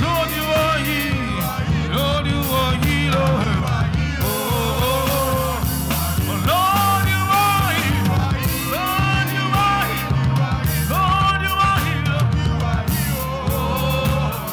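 Worship music: voices singing held, wavering notes over a band with a steady, strong bass.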